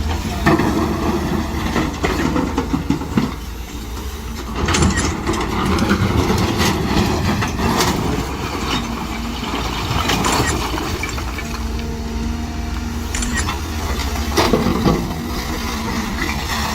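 Heavy diesel machinery running steadily, with irregular knocks now and then.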